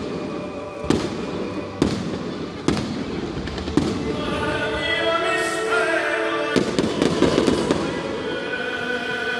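Fireworks shells bursting: sharp bangs about once a second for the first four seconds, then music plays over the show, with a quick run of crackling bangs about two-thirds of the way through.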